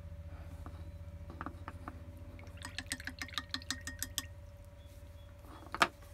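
Paintbrush clinking against a glass water jar as it is rinsed: a quick run of about ten light, ringing clinks, then one louder knock near the end.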